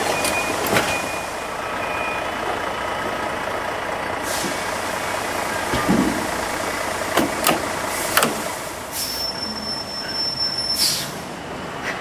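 Heavy cargo truck's engine running steadily, with several short hisses of released air from its air brakes and a few sharp metal clacks about seven to eight seconds in, as the truck pulls away.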